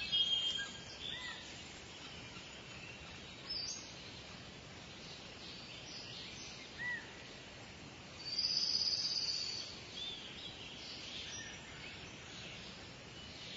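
Outdoor ambience with birds chirping: short high calls scattered throughout, and one longer, louder high call about eight and a half seconds in, over a faint steady hiss.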